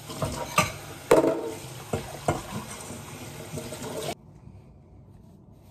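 Kitchen tap running into a sink while produce is rinsed under the stream by hand, with a few knocks of things against the sink. The water sound stops abruptly about four seconds in, leaving quiet room tone.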